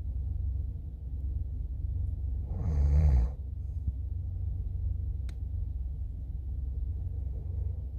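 A person snoring once, about three seconds in, over a steady low rumble, with a single sharp click a little after five seconds.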